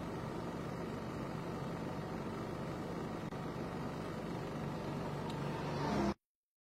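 A motor vehicle engine running steadily at idle. A motorcycle engine grows louder near the end as it approaches, then the sound cuts out abruptly to dead silence about six seconds in.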